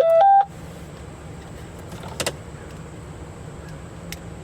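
Radio beep tone: three short electronic notes stepping up in pitch, right at the start, from a TYT TH-8600 mobile radio. The radio is responding after its water-soaked mic connector was cleaned and greased. After it comes a low steady hum with two sharp clicks, about two seconds and four seconds in.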